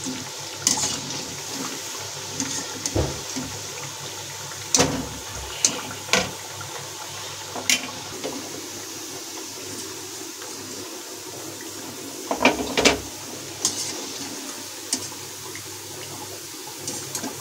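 Mathri deep-frying in hot oil in a steel kadhai: a steady sizzle, with sharp metallic clinks now and then as a wire skimmer lifts the fried pieces out and knocks against the pan and a steel plate.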